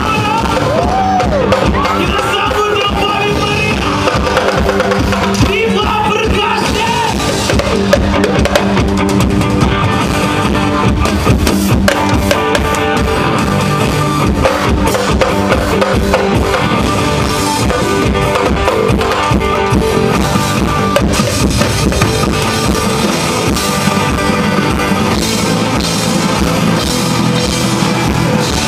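Live rock band playing a song loud, with the drum kit prominent.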